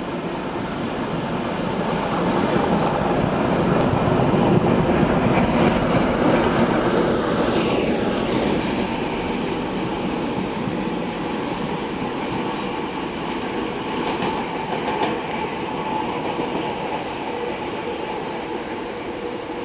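ChME3 diesel-electric shunting locomotive running along the track: the steady rumble of its diesel engine and running gear swells to its loudest about a quarter of the way in and then eases off a little. About 7 to 8 seconds in, a whine falls steadily in pitch.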